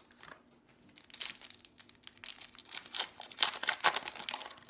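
Trading-card pack wrapper crinkling and tearing as a pack is opened: a run of rustling bursts starting about a second in, loudest near the end.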